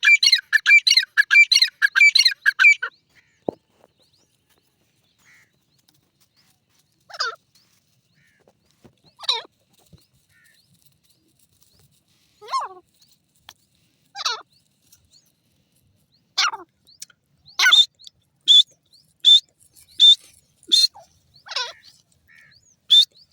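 Grey francolin calling. It opens with a fast run of shrill repeated notes, then gives single loud whistled calls that slide down in pitch every few seconds, and builds to a quicker series of sharp notes about one a second near the end.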